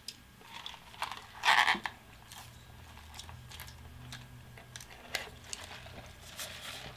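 Eating and drinking sounds: scattered small mouth clicks and smacks while sipping soda through a straw, with one louder, noisy burst about a second and a half in.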